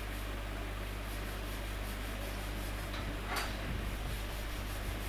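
Steady low electrical hum under faint background hiss, with one brief rub or click about three and a half seconds in.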